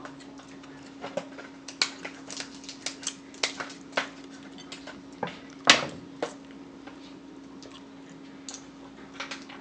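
Cooked snow crab leg shells being cracked and broken apart by hand: an irregular scatter of sharp clicks and cracks, the loudest a little past the middle. A steady low hum runs underneath.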